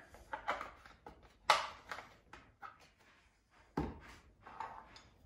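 A few light knocks and taps as a cardboard milk carton is handled, with a deeper thud about four seconds in as it is set down on the countertop.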